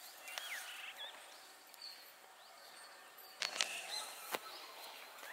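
Birds chirping in short scattered calls over quiet outdoor ambience, with a few sharp clicks and rustles about three and a half to four and a half seconds in.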